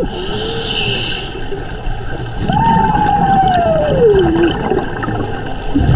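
Humpback whale song heard underwater: a short low moan, then a long call that slides slowly downward over about two seconds, over the steady bubbling of scuba divers' exhaled air.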